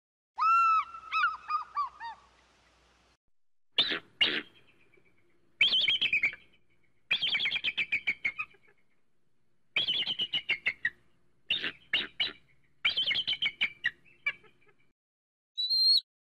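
Eagle calling in bouts of rapid, high, repeated notes with short pauses between them. The first bout is lower and falls in pitch, and the later ones are quicker, higher runs.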